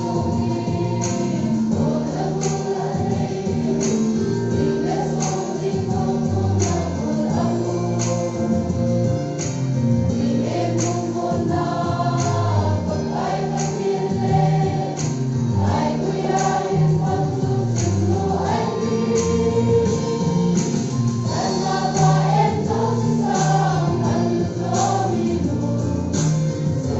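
A church choir of children and teenagers, boys and girls together, singing a gospel song over a steady beat.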